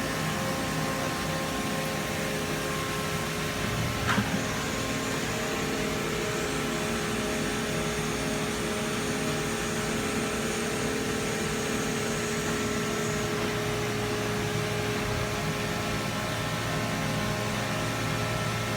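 Enshu five-axis CNC milling machine running with a steady mechanical hum made of several held tones over a noise bed, with a short knock about four seconds in and a faint high whine for several seconds after it.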